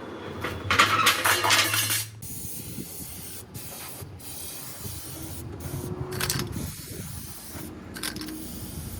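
A spray hissing in steady runs, loudest in the first two seconds and broken by several brief pauses after that.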